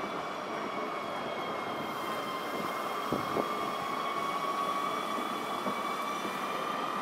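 Alstom Citadis 305 tram passing, a steady high-pitched whine with overtones sounding over its running noise, with a couple of faint knocks about three seconds in.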